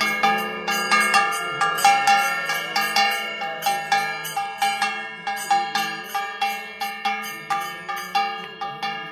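Metal temple bell struck over and over in a steady rhythm, about three strokes a second, each stroke ringing on into the next.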